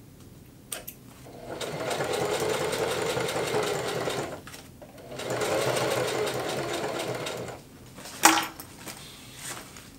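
Singer Heavy Duty household sewing machine stitching in two runs of a few seconds each, with a brief stop between them. A sharp click comes near the end.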